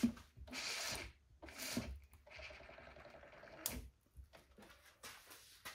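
Faint scuffing and rubbing as the 3D-printed engine is turned over by hand at its sprocket-and-flywheel, which will not pull over fully, with a sharp click about three and a half seconds in.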